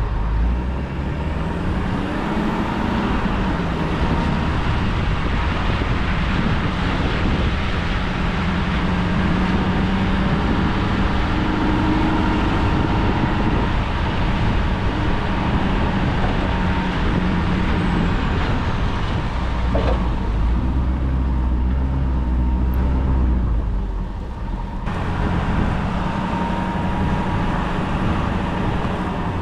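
Pickup truck driving, heard from inside the cab: steady engine and road noise with a thin constant whine, the engine pitch rising and falling a few seconds in, and a heavier low rumble for a few seconds past the middle.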